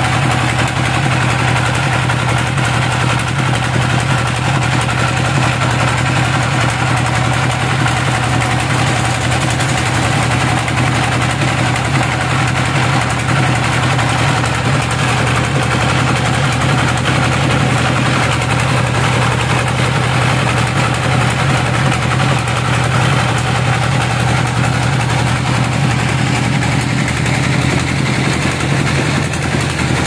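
Stationary engine driving a sawmill band saw through V-belts and a pulley, running steadily with a low hum.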